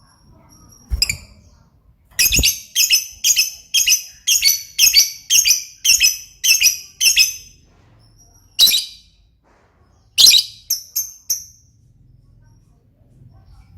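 Lovebird calling: a fast run of about a dozen high-pitched chirps at roughly two a second, then a couple of single calls and a few short chirps.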